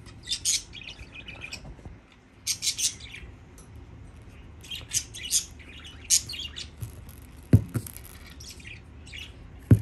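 Silicone suction-cup baby toys being wobbled and tugged on their suction bases, giving short, high, chirp-like squeaks in little clusters, with two sharp knocks near the end.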